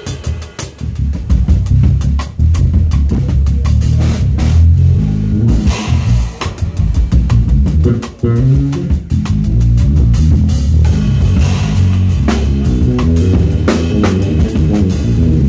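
Drum kit played in a fast, busy solo, with rapid rolls and strokes across the drums and cymbal crashes, over an electric bass guitar playing a low, moving line. A dense roll comes near the start, and the playing drops away briefly about eight seconds in.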